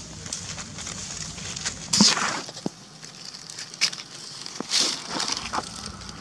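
Dry leaf litter crackling and rustling in a few short bursts, the loudest about two seconds in.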